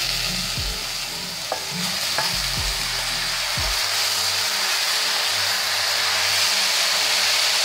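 Chopped mustard greens sizzling in hot mustard oil in a steel wok, stirred with a metal spatula that scrapes the pan a few times in the first half. A steady frying hiss that grows a little louder.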